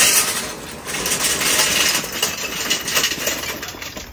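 Royal Oak natural hardwood lump charcoal pouring from its paper bag into a metal chimney starter: a dense clattering rattle of lumps hitting the metal and each other, thinning out near the end.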